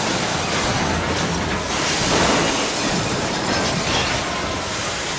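Train crash sound effect: a loud, dense rushing rumble of a train, easing off slightly near the end.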